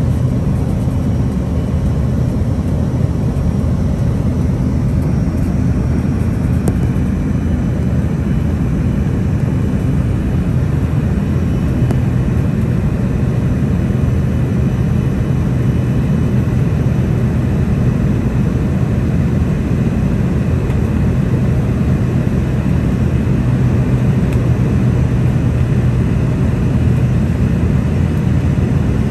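Steady engine and air noise in the cabin of an Embraer ERJ145 climbing after takeoff, its rear-mounted Rolls-Royce AE3007 turbofans running at climb power with a constant low hum.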